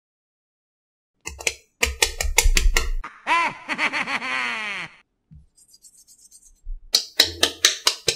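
Cartoon sound effects: a quick run of clicks and knocks over a low thud, then a wobbling tone that falls in pitch for about two seconds, a faint rattle, and another run of clicks near the end.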